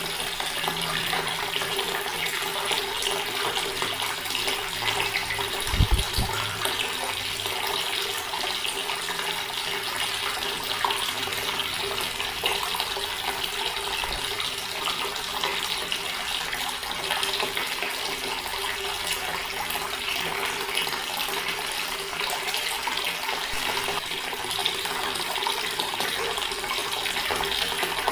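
Water running steadily from a tap, splashing without a break. A brief low thump about six seconds in.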